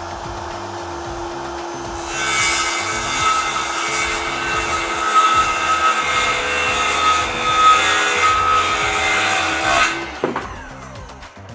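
Power saw running, then cutting through wood for about eight seconds; the cut stops about ten seconds in and the motor winds down with a falling pitch.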